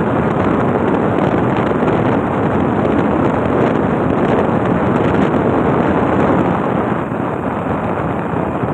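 Steady rushing wind on the microphone from a moving vehicle, mixed with road and engine noise; it eases slightly about seven seconds in.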